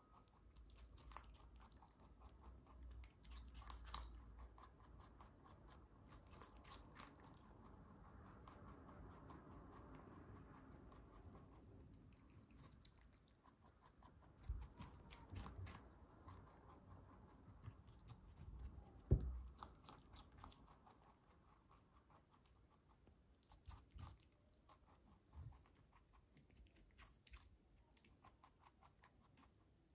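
White lop rabbit chewing a cucumber: faint, quick, crunchy nibbling throughout. A few low thumps come in the middle, the loudest about two-thirds of the way through.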